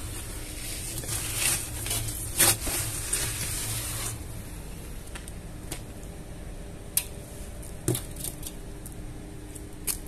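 A hand squelching and scraping through thick wet sludge in a metal vacuum drum, with a wet crackling that peaks about two and a half seconds in. Later come a few separate sharp clicks.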